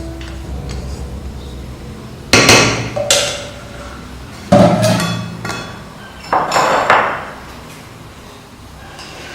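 Metal spoon knocking and scraping against a cooking pot in five sharp clanks, in three groups, while half-boiled rice is spooned into the biryani pot.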